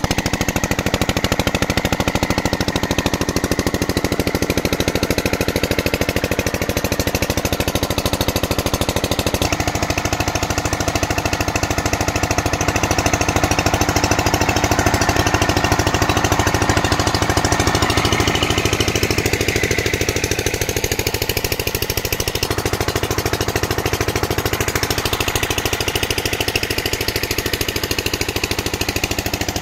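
Single-cylinder stationary diesel engine running steadily with an even, rapid knock of its firing strokes, belt-driving an irrigation water pump.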